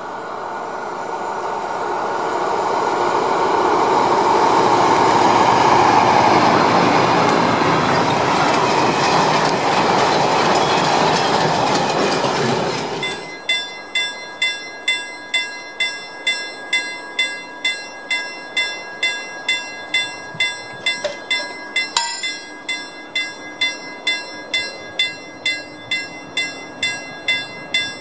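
Diesel-hauled freight train passing, its rumble swelling and fading, then cut off short. After that a level-crossing warning bell rings steadily, about two strokes a second, ahead of the next train.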